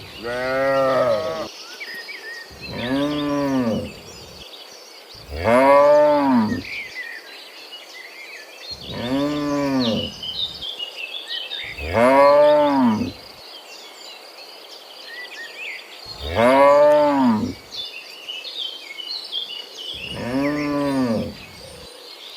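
Cattle mooing: seven long moos a few seconds apart, each rising and then falling in pitch.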